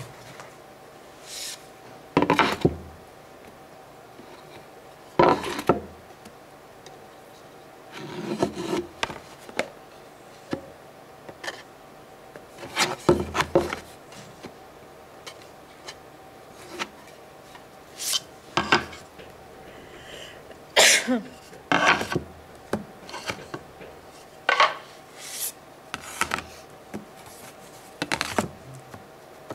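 Flat wooden boards rubbed and scraped by hand against a table top and an upright panel, in short separate strokes a second or two apart, some ending in a sharp knock.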